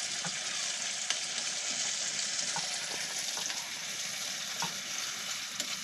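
Sauce sizzling in hot oil in a frying pan while being stirred, the spatula clicking lightly against the pan now and then.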